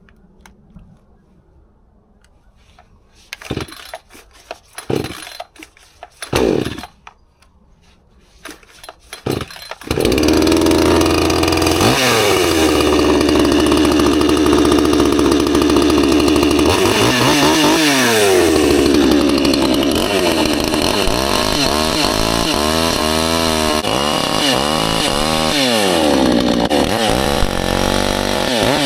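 Cold start of a Hyundai P1 62cc two-stroke chainsaw: several short pulls of the starter cord bring a few brief bursts, and the engine catches about ten seconds in. It then runs loudly, its speed rising and falling again and again as the throttle is worked.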